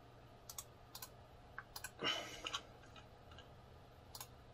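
Faint, scattered clicks of a computer mouse and keyboard, one or two a second, with a brief louder noise about two seconds in, over a low steady hum.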